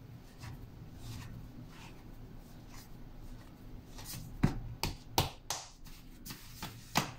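Hands kneading and patting a ball of dumpling dough on a countertop: faint pressing and rubbing at first, then a series of short, sharp pats from about four seconds in as the dough is shaped into a ball.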